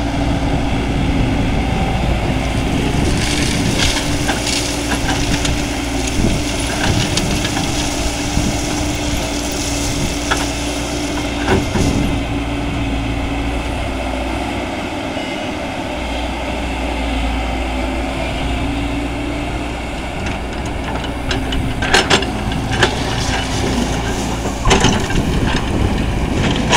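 Diesel engine of a JCB tracked excavator running steadily under load, with bursts of crushed stone scraping and clattering as the bucket digs into the pile and loads a tipper truck, several sharp clatters near the end.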